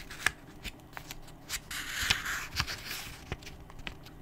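Paper rustling for about a second, around two seconds in, among scattered small clicks and taps: a book's pages being handled and turned.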